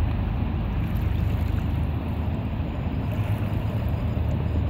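Push boat's diesel engines running with a steady low drone as the push convoy moves along the river, under a continuous hiss.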